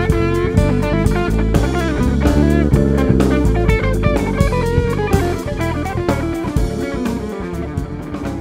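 Live band music: electric guitar over keyboard and drums, getting gradually quieter over the last few seconds.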